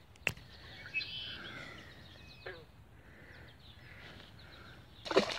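Faint birds chirping over quiet outdoor background noise, with a sharp click about a quarter second in. Near the end comes a louder splash as a small fish is thrown back into the pond.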